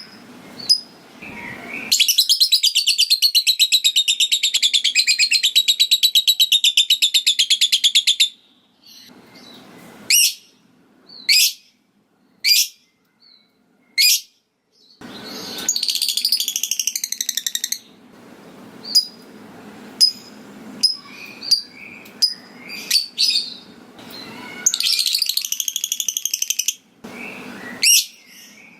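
Lovebird calling: a long, fast chattering trill (ngekek) of about six seconds, then single sharp chirps about once a second. Two shorter trills follow, with quick chirps between them.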